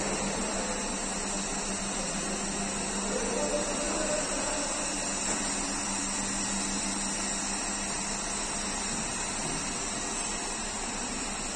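Steady machine noise from a running motor or blower, with a low hum that stops about nine seconds in.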